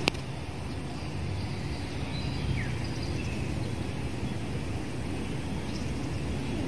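Steady outdoor background noise, mostly a low rumble, with a few faint high chirps and a short click at the very start.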